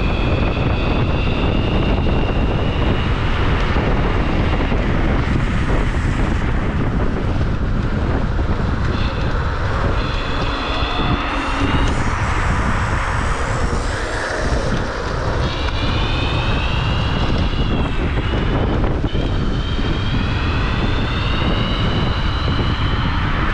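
Electric scooter motor whining at high speed, its pitch climbing as it accelerates in four separate pulls, over heavy wind rush on the microphone.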